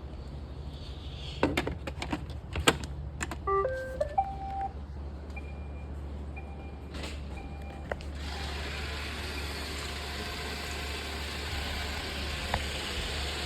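iRobot Roomba robot vacuum being handled and restarted: a few clicks, a short rising tune of beeps, then a few short high beeps. About eight seconds in, its vacuum motor and brushes start and run steadily.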